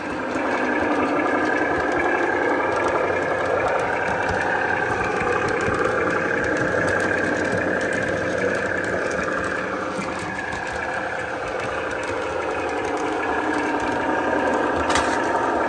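Lionel O-gauge Doodlebug motor car running on three-rail track: its onboard sound system's engine sound mixed with the motor and wheels rolling on the rails. The sound swells as the car comes close, and there is one sharp click near the end.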